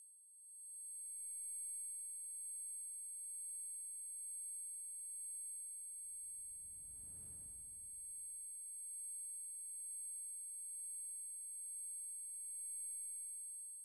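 Steady high-pitched electronic ringing made of several pure tones held together, with a fainter lower tone beneath. A low rumble swells up and fades away in the middle.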